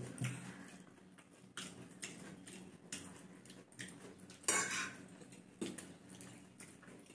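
Metal forks clinking and scraping on plates while noodles and chicken are eaten, a scattering of short taps with the loudest about four and a half seconds in.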